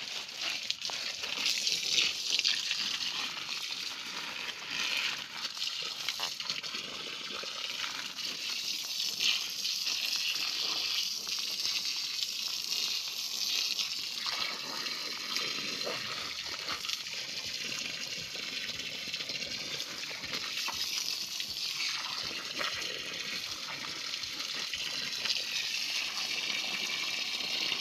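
Water from a pump-fed irrigation hose gushing steadily onto the soil and splashing into a muddy puddle as it pools.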